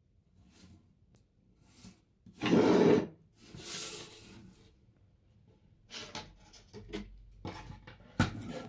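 A string of short scraping and rubbing noises, the loudest about two and a half seconds in, then several sharp clicks and knocks near the end.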